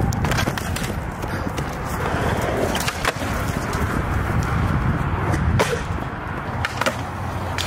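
Skateboard wheels rolling on concrete with a steady rumble, broken by several sharp clacks of the board.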